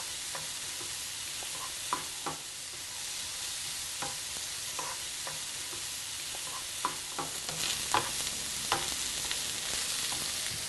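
Mushrooms, onions and garlic sizzling in a frying pan, stirred with a wooden spoon that knocks against the pan now and then, more often in the second half.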